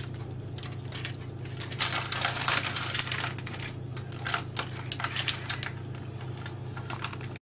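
A spatula spreading thick cake batter over parchment paper on a baking tray: irregular scraping, paper crinkling and small clicks, busiest about two to three seconds in, over a steady low hum.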